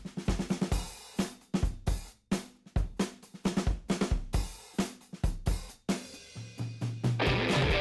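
Background music: a drum-kit beat of steady strikes, joined near the end by bass and electric guitar.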